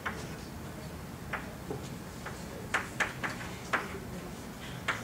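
Chalk writing on a blackboard: about seven sharp, irregular taps and short strokes as a few symbols are written.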